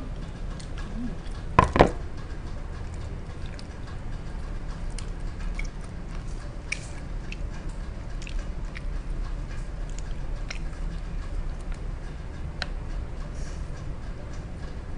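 Mukbang eating sounds: chewing, with small scattered clicks of wooden chopsticks picking at a food container. Two sharp knocks come close together a little under two seconds in, the loudest sounds here.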